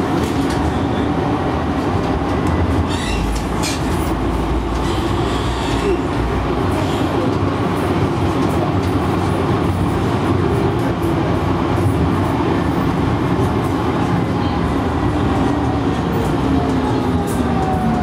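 Tram running on street track, heard from the driver's cab: a steady rumble of wheels on rail with a faint motor whine that climbs in pitch at the start and sinks near the end, and a few sharp clicks about three to four seconds in.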